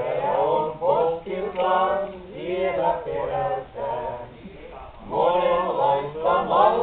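A small group of men singing together unaccompanied, several voices at once holding drawn-out notes. They break off briefly about four and a half seconds in and come back in louder.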